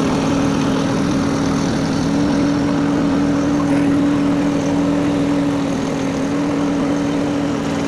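Mini skid steer's engine running steadily, carrying a pallet of concrete blocks on its forks, with a strong unchanging hum.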